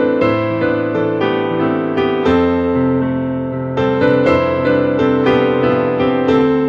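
Piano music: a slow, gentle melody over held chords, with new notes struck every half second or so.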